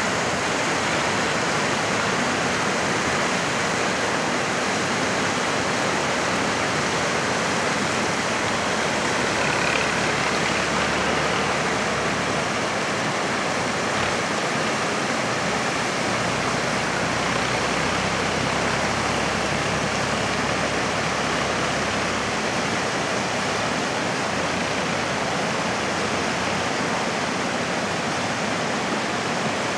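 Steady rush of flowing water, like a river running through a rocky gorge, even and unbroken throughout.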